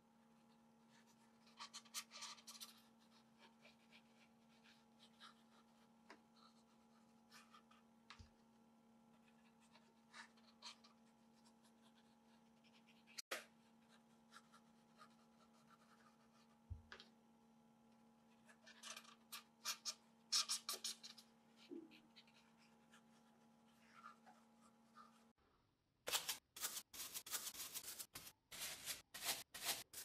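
Electric hot knife melting a groove into foam board: faint scratching and crackling over a steady low hum. About 26 s in, this gives way to louder rapid scratching as a bristle brush dabs pigmented concrete mix onto the foam.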